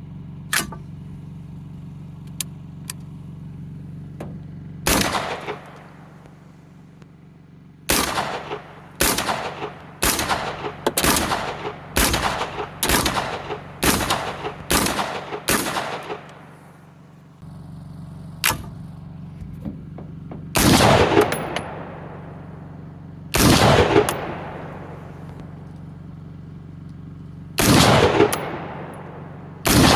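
.300 Blackout rifle firing: a single shot about five seconds in, then a quick string of about a dozen shots, then a few single shots a few seconds apart. A steady low hum runs underneath.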